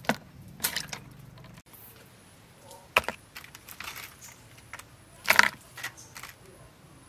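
Whole raw prawns being dropped one by one into a plastic basin: sharp clicks and light knocks of shell against plastic and against the other prawns, several of them a second or so apart, the loudest about five seconds in.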